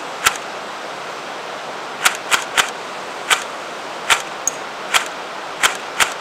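Electric airsoft M41 rifle (AEG) firing single shots, about nine sharp cracks at uneven intervals, over the steady rush of a river.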